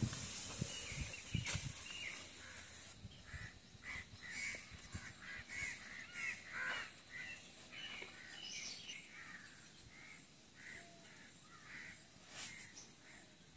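Birds calling in short, repeated notes. In the first couple of seconds there is also rustling and a few soft thuds.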